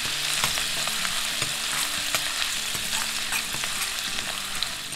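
Chopped garlic and ginger sizzling in hot oil in a stainless steel kadai, stirred with a metal ladle. A steady hiss runs throughout, with scattered small pops and clicks of the ladle against the pan.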